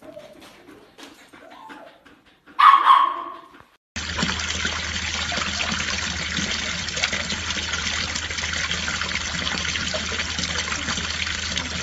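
A dog barks once, loudly, about two and a half seconds in, after a few faint taps. Then, from about four seconds, water pours steadily from a garden water feature and splashes into the basin below.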